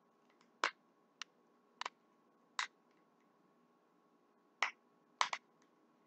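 Sharp clicks of small hand cutters closing on a plastic epoxy glue tip as it is being cut off, six or seven at irregular spacing, two in quick succession near the end.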